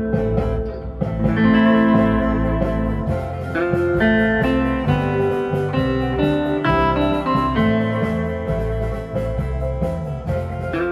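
Guitar music: plucked notes over a bass line, in a bluesy style.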